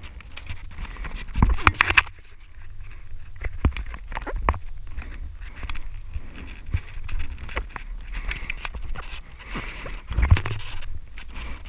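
Irregular footsteps, knocks and scrapes of shoes and hands on rock while scrambling up a steep trail, at an uneven pace, with a louder cluster about a second and a half in and again near the end.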